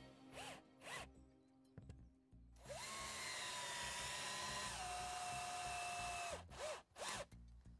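Cordless drill-driver driving screws through a plastic fan flange into a fiberglass roof: a couple of short trigger blips, then a steady whine of about four seconds that drops to a lower pitch partway through, and two more short blips near the end. The screws are being tightened bit by bit.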